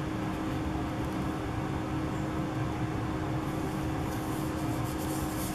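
Steady low room hum, like a running air conditioner or fan, with a faint steady tone in it. Faint rustling of paper being handled near the end.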